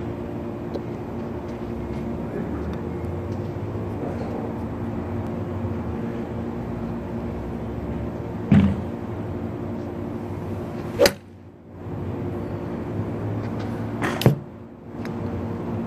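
Golf iron striking balls off an artificial turf mat: three short, sharp impacts a few seconds apart, the first duller, the last two crisp clicks. A steady mechanical hum runs underneath.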